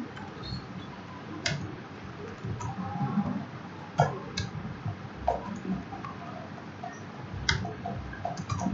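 Irregular, scattered clicks of a computer keyboard and mouse while code is typed, a handful of sharper clicks standing out from the softer key taps.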